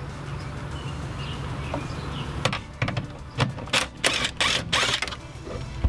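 Cordless 20-volt impact tool, with a socket on an extension, working a 15 mm steering-column mounting bolt loose. It starts with a few sharp clicks and knocks, then about two-thirds of the way in come short loud bursts of hammering. A low steady hum runs under the first half.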